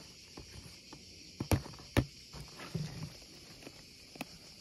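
Plastic paint dropper bottles clicking and knocking as they are handled in their cardboard box: two sharp knocks about a second and a half and two seconds in, with lighter taps around them.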